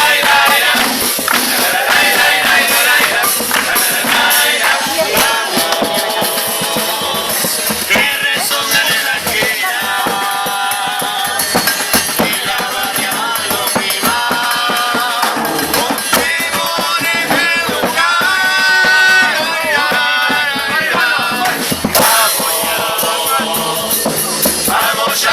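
A murga troupe's chorus singing together over steady drum and cymbal percussion.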